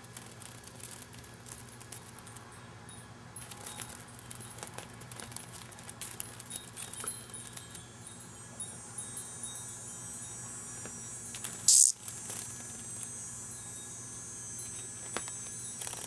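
A cicada buzzing and fluttering on carpet as a cat paws at it: scattered light clicks, then a short, loud, high-pitched buzz about three-quarters of the way through, with a faint high buzz running on after it.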